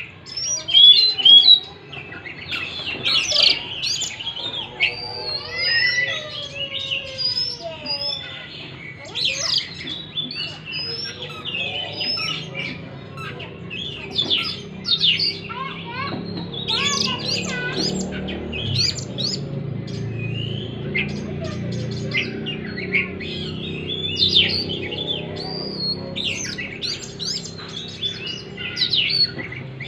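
Oriental magpie-robin (kacer) singing a busy, unbroken string of varied whistles, chirps and quick trills, some notes sweeping down in pitch. A low hum runs underneath in the middle part.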